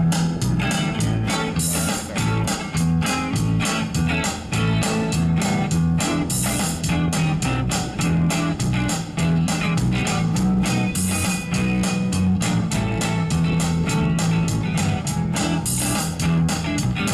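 Live blues-rock band playing an instrumental break: electric guitar over a driving bass line and drums with a steady beat.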